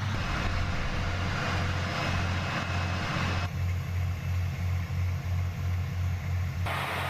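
Heavy military trucks' engines running, a low rumble that pulses about two to three times a second, under a steady hiss.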